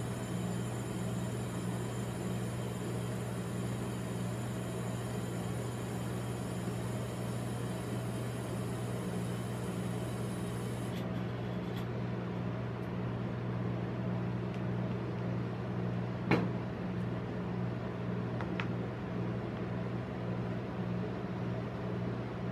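Steady low hum of a rolled-ice-cream machine's refrigeration unit under the steel cold plate. A sharp tap comes about two-thirds of the way through, and a fainter one follows.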